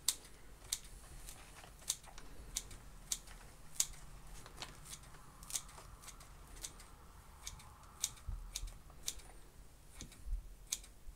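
Scissors snipping repeatedly through a clump of sphagnum moss, cutting it into small pieces: a crisp snip about one and a half times a second.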